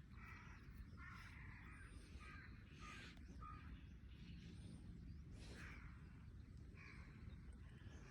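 Faint crow calls: a series of short, rough caws repeated at irregular intervals, over a steady low background rumble.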